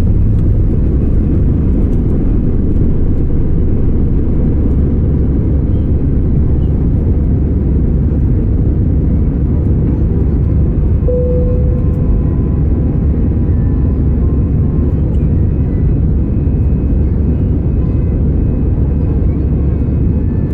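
Steady cabin noise inside an Airbus A320: an even rumble of engines and airflow, with a brief thin tone about halfway through.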